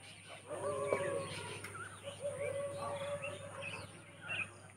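Several birds chirping and calling, short high chirps mixed with a few longer, lower held calls, over a steady low hum.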